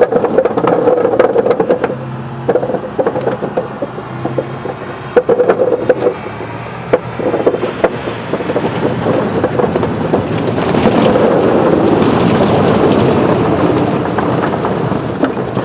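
A tractor-drawn potato harvester at work: a steady engine drone under a dense clatter of rapid knocks and rattles from the machine.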